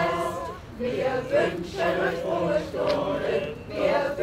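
A large mixed choir of men's and women's voices singing together, in sung phrases with short breaths between them.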